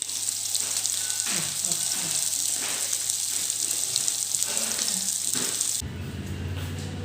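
Marinated Indian mackerel (ayila) frying in hot oil in a pan, a steady sizzle. Near the end the sizzle cuts off suddenly and a low rumbling noise takes over.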